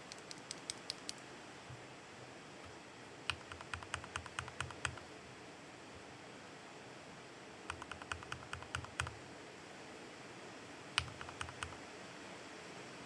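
Mechanical keyboard with Gateron Milky Yellow Pro linear switches being typed on: four short bursts of keystroke clicks, each separated by a pause of a few seconds.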